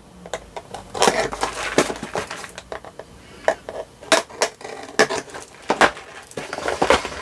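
Craft knife slitting the small tapes that seal a thin cardboard box, then the box being handled. It is a run of irregular short scrapes, clicks and taps.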